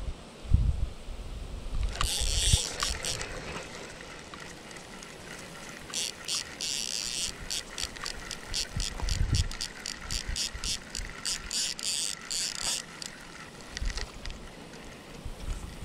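Spinning fishing reel being cranked, its gears clicking in a fast, even rhythm: a short burst about two seconds in, then a longer run from about six seconds in that stops near the end. A few low thumps of the rod being handled.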